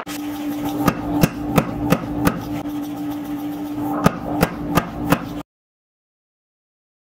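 Power hammer striking a red-hot Damascus steel billet in two quick runs of blows, about three a second, over a steady machine hum. The sound cuts off suddenly about five seconds in.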